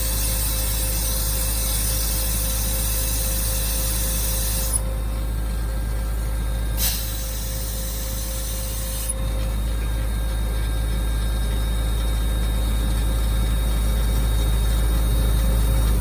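Ingersoll Rand air compressor running steadily, a low hum with a steady whine over it and a high air hiss that drops out for a few seconds midway.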